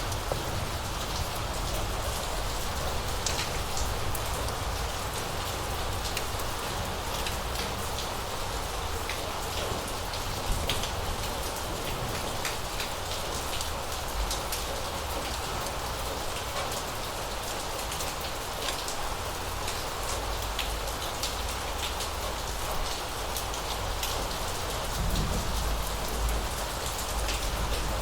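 Steady rain falling on hard surfaces, with many separate drops ticking sharply over an even hiss and a steady low rumble underneath.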